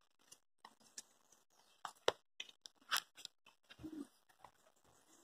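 Faint, irregular clicks and taps from someone walking with a phone in hand.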